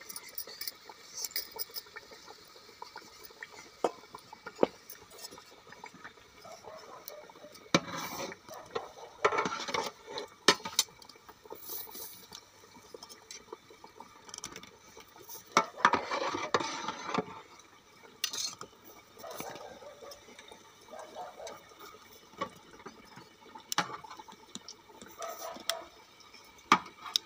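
Dough being worked by hand: a rolling pin rolling it out, then a steel tumbler pressed into the sheet to cut rounds. Scattered sharp clinks and taps throughout, with a few longer rustling stretches.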